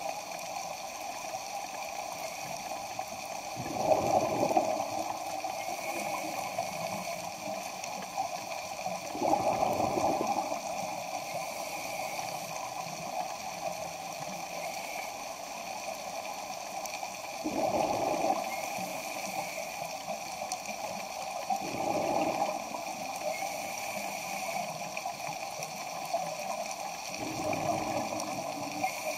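A scuba diver's regulator exhaust heard underwater: a burst of exhaled bubbles about a second long every four to six seconds, five in all, over a steady underwater hiss.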